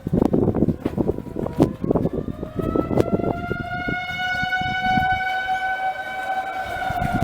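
Outdoor tornado warning siren sounding a steady wail. Its tone rises slightly and grows louder about two to three seconds in, holds, then eases down near the end. Low rumbling noise and several sharp knocks sit under it in the first few seconds.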